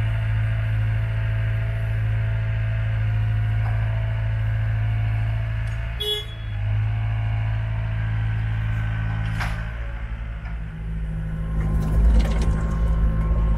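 Diesel engine of a Wacker Neuson 75Z3 compact excavator running steadily as it works, with a brief dip about six seconds in. Near the end it gets louder and rougher, with mechanical clattering as the machine travels on its tracks.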